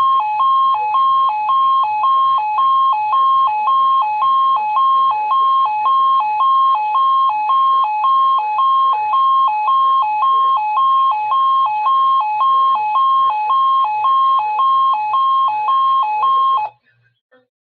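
Weather alert radio's alarm sounding on activation: a loud two-tone warble alternating evenly between a higher and a lower beep about twice a second, cutting off abruptly near the end.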